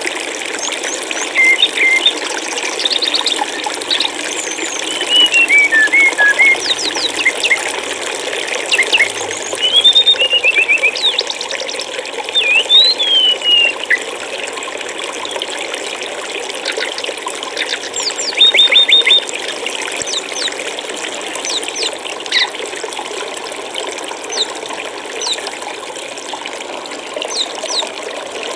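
Water running steadily in a stream, with small songbirds chirping and trilling in short bursts over it, several times.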